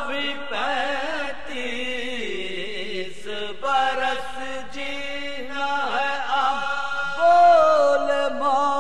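A man chanting a marsiya in soz style, drawing out long wavering melodic notes with no instruments, the voice swelling louder about seven seconds in.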